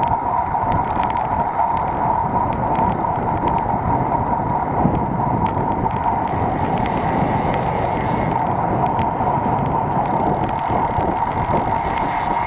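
Wind rushing over the microphone and tyre-on-road noise from a road bicycle riding at pace, with a steady mid-pitched hum and scattered faint ticks throughout.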